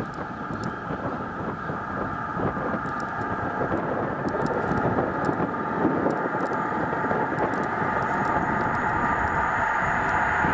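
InterCity 125 (HST) with a Class 43 diesel power car approaching at speed: its engine noise and a high, steady whine grow gradually louder.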